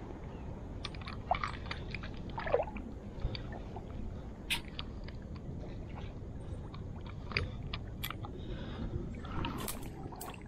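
Handling noise from freeing a snagged fishing line from mangrove branches: scattered small clicks, scrapes and rustles, with two short squeaks in the first few seconds, over a steady low rumble.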